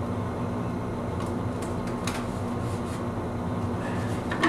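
Steady room hum from a fan or air conditioner, with a few faint clicks and rustles of hands working the plastic engine cowling and a sharper click near the end.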